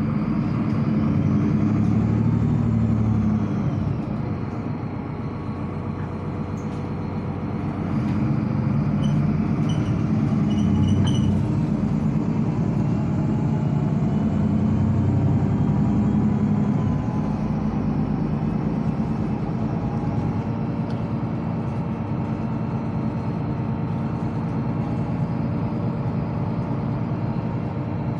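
Solaris articulated city bus heard from inside the passenger cabin while driving. Its drivetrain runs steadily, swelling twice as the bus speeds up, with a high whine that rises and then falls each time.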